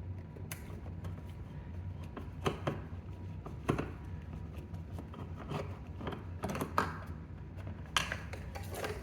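Scattered light clicks and knocks of a screwdriver working a Phillips head screw out of a car's plastic interior door trim, over a low steady hum.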